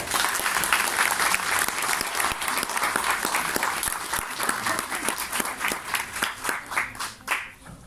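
Audience applauding: a dense round of clapping that thins to scattered separate claps and stops shortly before the end.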